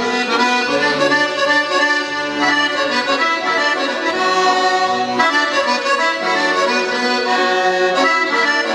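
Instrumental interlude between sung verses of a Ukrainian folk ballad: a melody over held chords, with bass notes coming in now and then, and no singing.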